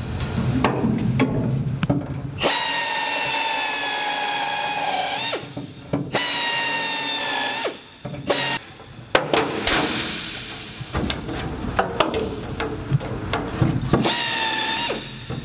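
Handheld drill drilling out rivet heads in an aircraft wing skin. It runs in bursts: two whining runs a few seconds long, the pitch sagging slightly as the bit bites, then a string of short trigger pulls, and one more run near the end.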